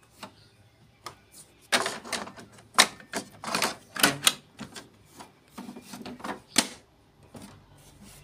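Hard plastic clicks and knocks of ink cartridges being pushed down into the carriage of a Canon Maxify MB2340 printer and snapped into place: an irregular run of sharp clicks lasting several seconds, loudest just before the middle.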